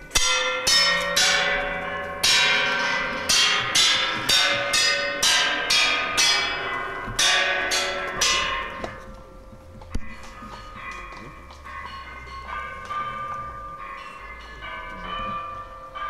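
The "Interleg Sounds" sound sculpture being struck in an improvisation, giving bell-like ringing tones. A quick run of strikes comes about two a second, then the strikes turn softer and sparser about nine seconds in.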